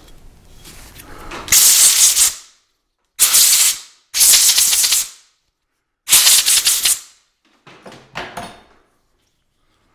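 Compressed-air blow gun blowing chips off a steel vise jaw in four short blasts of about a second each, with a weaker fifth near the end.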